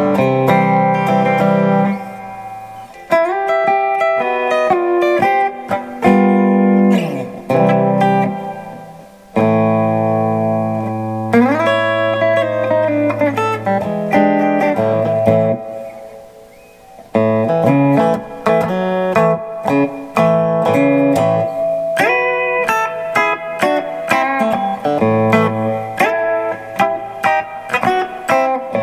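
Monoprice Indio Retro Classic Tele-style electric guitar played through a combo amp: chords and single-note licks with string bends. About halfway through a held note rings out and fades, then quicker picked phrases follow.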